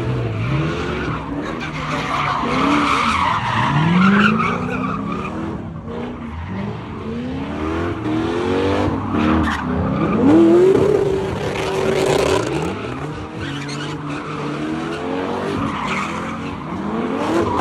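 Car engine revving up and down over and over while the car spins donuts, its tyres squealing and screeching on the pavement.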